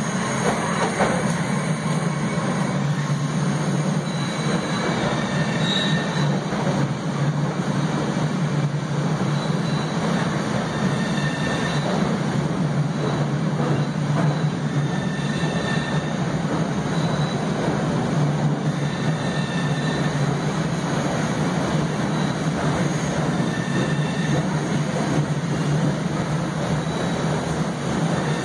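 A new MBTA Red Line 1900-series subway train pulls into an underground station and runs along the platform. It makes a steady, loud rumble of wheels and traction motors over a low hum, with faint short high whines now and then.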